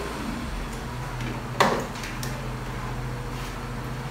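Handling of a large framed wall clock: one sharp knock about a second and a half in, with a few faint clicks around it, over a steady low hum.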